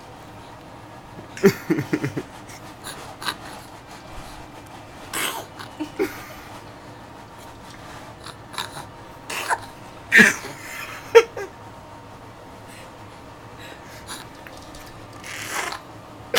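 A dog sneezing and snorting in a string of short bursts, about eight in all, the loudest around ten seconds in. These are excited play sneezes, the 'fake sneezing' a dog does when worked up in play.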